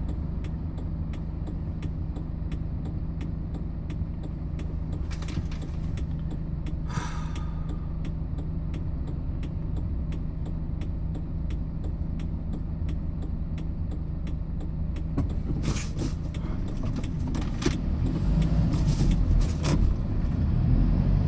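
Hyundai Porter box truck's engine and road noise heard from inside the cab while driving, a steady hum. About 15 seconds in the engine note changes, and a deeper, louder rumble builds near the end.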